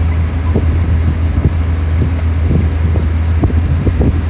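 Steady low drone of a moving vehicle, with wind on the microphone.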